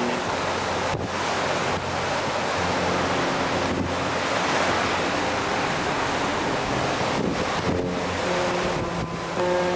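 Wind blowing across a camcorder microphone on the open deck of a cruise ship under way, a steady rushing noise mixed with the wash of the sea.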